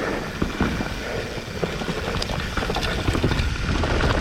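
Mountain bike riding fast down a rough trail: wind rumbles on the microphone, and the bike clatters with many short knocks and rattles as it runs over roots and rocks.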